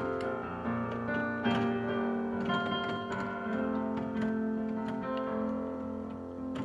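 Yamaha Clavinova digital piano being played by hand: held low chords with a melody of shorter notes over them.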